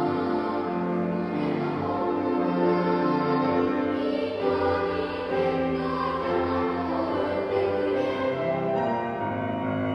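Choral singing of a song with instrumental accompaniment, mostly long held notes.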